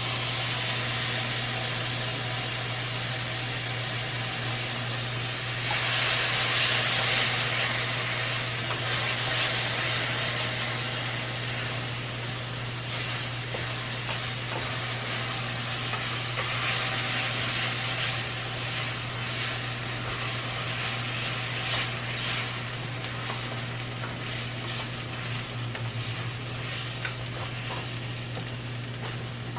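Tomato sauce sizzling in hot oil with fried rice in a pan, stirred now and then; the sizzle swells loudest about six seconds in and slowly eases off.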